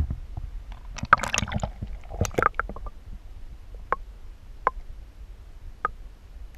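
Shallow sea water splashing and gurgling against an action camera as it goes under the surface, about a second in; then a muffled underwater rumble with three short sharp ticks.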